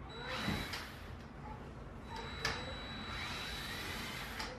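Cordless drill running in reverse, backing screws out of drywall, with a thin high whine in two short runs. There is a sharp click about halfway through.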